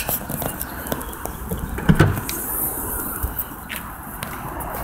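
Hatchback tailgate of a Kia cee'd being unlatched and lifted open: a scatter of clicks and knocks, the loudest about two seconds in.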